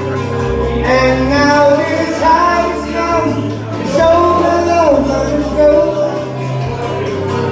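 Karaoke: a man singing into a microphone over a backing track played through PA speakers, with a bass line underneath.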